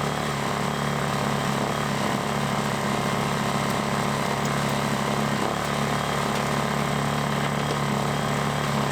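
Lifan ESI860i-CA 40cc inverter generator engine running at a steady speed.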